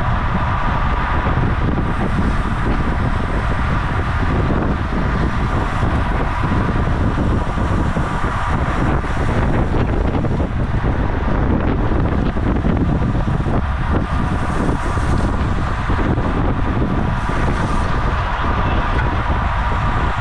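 Wind rushing hard over the microphone of a road bike at racing speed, with a steady high hum running underneath.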